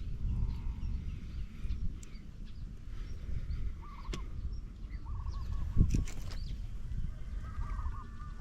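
Wind rumbling on the microphone, with three short bursts of trilling, wavering calls about halfway through and near the end, and a couple of sharp clicks in between.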